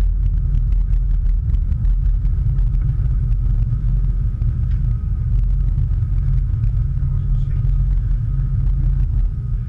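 Crew transfer vessel's engines running under way with a heavy, steady low rumble, a faint steady whine above it and light rattling clicks.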